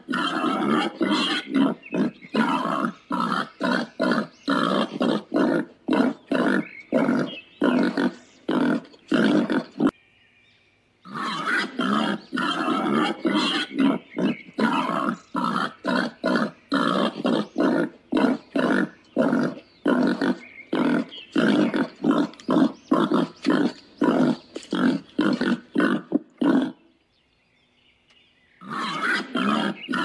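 Warthogs grunting at close range while feeding, a fast run of short grunts at about three a second, with two brief pauses about ten and twenty-seven seconds in.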